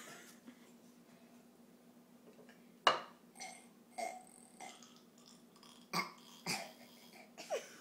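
A young child burping several times in a row, short separate burps with pauses between them, the loudest about three seconds in.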